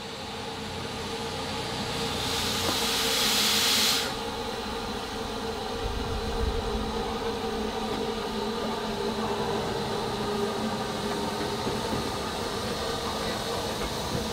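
Narrow-gauge Double Fairlie 0-4-4-0 steam locomotive No.12 David Lloyd George drawing its train slowly along a platform. A loud hiss of steam builds over the first seconds and cuts off sharply about four seconds in, followed by the steady running of the engine and coaches at low speed.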